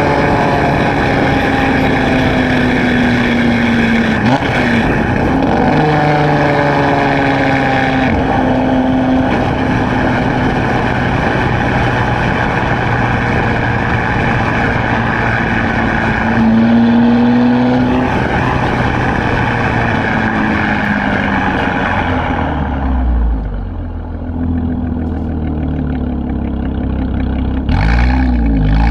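Borla ATAK axle-back exhaust on a 2016 Chevrolet Camaro RS while driving: the engine note falls and rises with changes in revs over road and wind noise. Near the end the road noise fades as the car slows, leaving a low exhaust rumble, and the revs climb again just before the end.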